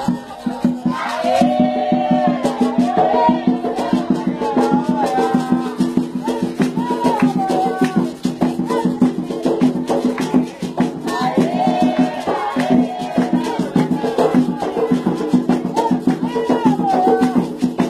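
Devotional singing in an Afro-Brazilian ritual, with sung phrases over dense, fast shaken-rattle strokes and other percussion.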